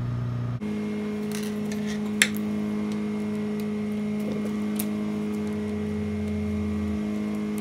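Screwdriver and metal presser foot clicking against the sewing machine while the presser foot is changed for a zipper foot, with one sharp click about two seconds in and a few lighter ticks. A steady machine hum runs underneath.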